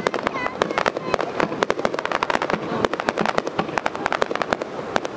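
Starmine fireworks barrage: shells bursting in rapid succession, a dense unbroken run of bangs and crackles, many each second.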